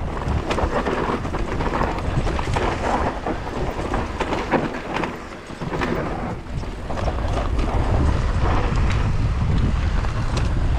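Wind buffeting the camera microphone while a Husqvarna electric mountain bike rolls down a dirt forest trail: a steady low rumble from the tyres, with frequent rattles and knocks as the bike bounces over bumps.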